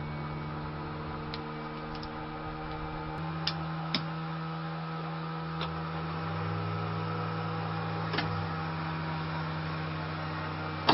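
Steady electrical hum of equipment running on the Mi-2 helicopter's weak power supply, with a handful of sharp switch-like clicks and one loud click at the very end.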